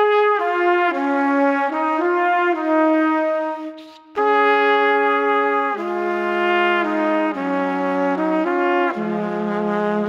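Background music: a melody played one note at a time in held, stepped notes with a brass-like sound, with a brief break about four seconds in.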